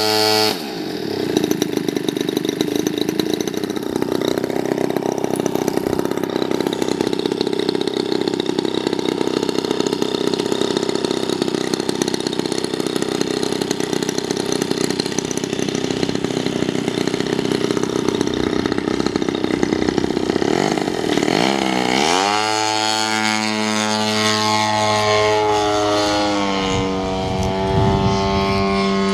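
Large Hots RC plane's engine and propeller running steadily at low throttle for about twenty seconds, then opening up with a rising pitch for the takeoff run and climb, the pitch shifting as the plane flies.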